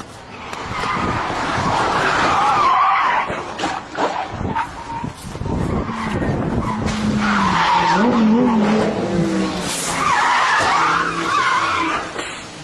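Car tyres skidding and squealing in three loud spells, with a car engine running underneath.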